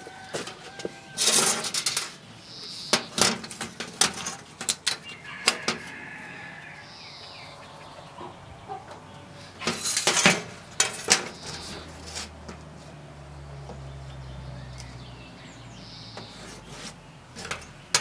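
Sharp clinks and taps of a metal square and measure being handled and set down on a washing machine's sheet-metal panel while marking out, coming in clusters with quieter gaps between.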